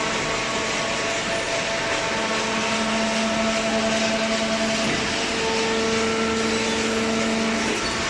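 Hydraulic paper baler running: a steady machine drone with several held hum tones from the motor and pump. A stronger hum comes in about two seconds in and drops out just before the end.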